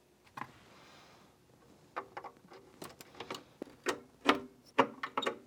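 Vacuum tubes being pushed into their sockets on a tube amplifier chassis, a 6L6 power tube among them: an uneven run of small clicks and clinks, some with a brief ring, starting about two seconds in.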